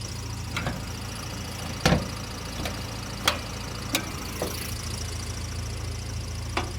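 Car engine idling, with a fast, evenly pulsing high squeak from the clutch and transmission area. The squeak goes away when the clutch pedal is pushed in, and the owner suspects the throw-out bearing. Several sharp knocks or clicks land irregularly, the loudest about two seconds in.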